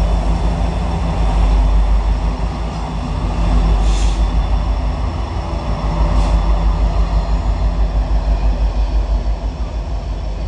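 Norfolk Southern coal train passing close by: its two diesel-electric locomotives run with a steady low rumble over the sound of the train on the rails. In the second half the sound takes on a regular throbbing beat.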